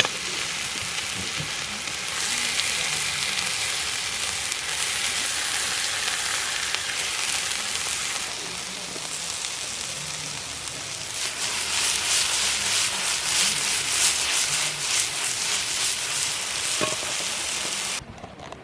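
Meat sizzling on a grill over a wood campfire: a steady frying hiss, with crackling that grows busier in the second half. It starts and stops abruptly.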